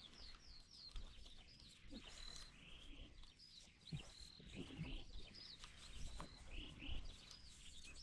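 Birds chirping and calling, many short repeated chirps throughout, faint, with a few soft knocks mixed in.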